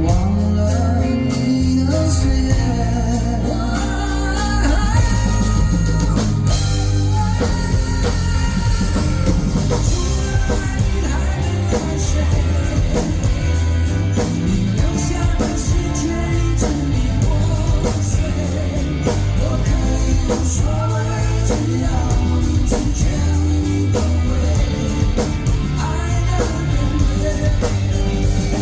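Live rock band music played loud through a concert PA: held low bass and guitar notes, then a drum kit comes in with a steady beat about six seconds in.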